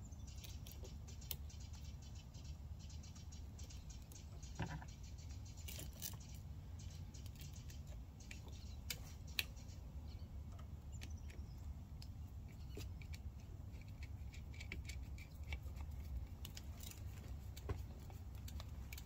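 Scattered small metallic clicks and taps of a wrench and screwdriver working the bolts on a small battery's terminals as the cables are fastened, over a faint low steady rumble.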